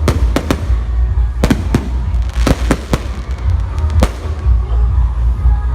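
Aerial fireworks bursting: a string of sharp bangs at irregular intervals, several close together in the first few seconds, over a continuous low rumble.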